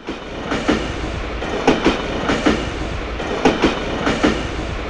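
Train wheels clacking over rail joints in quick double clicks that repeat steadily (clickety-clack), over a steady low rumble of a passing or moving train.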